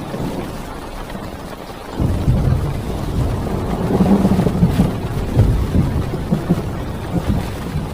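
A long rumble of thunder that swells about two seconds in and fades toward the end, over heavy rain on a parked car.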